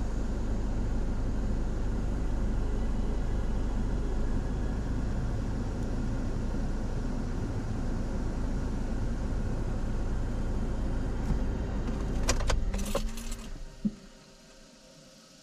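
A car engine running steadily. About twelve seconds in, keys jangle with a few clicks, and the engine sound stops just before the end: the engine being switched off.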